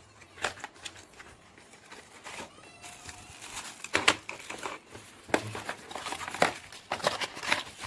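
Packaging crinkling and rustling as a wired computer mouse is unboxed, with scattered sharp clicks and taps from handling the box and mouse.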